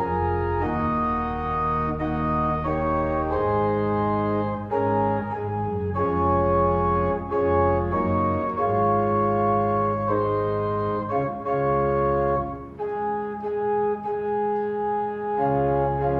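Organ playing a postlude of held chords over a bass line, the chords changing every second or so.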